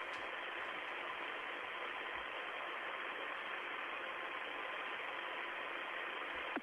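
Steady hiss of static on a narrow-band radio communications channel, with a faint steady tone running through it.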